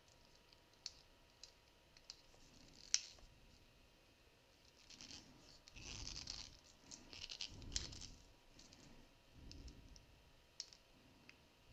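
Faint clicks and soft rubbing of a plastic battery-powered electric nail file being handled and its switch tried, the sharpest click about three seconds in. No motor runs: there are no batteries in it yet.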